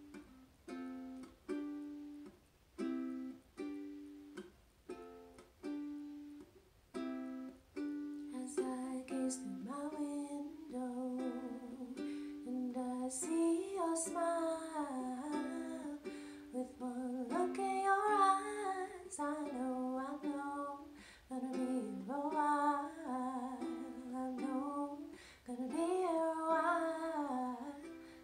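Cordoba ukulele strummed in steady chords, about one strum a second. About eight seconds in, a woman's voice joins with a melody over the strumming.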